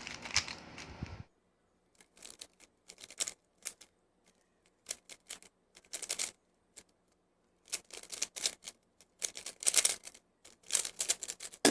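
A speedcube being turned by hand: runs of quick, sharp plastic clicks from the layers snapping round, with short pauses between the runs.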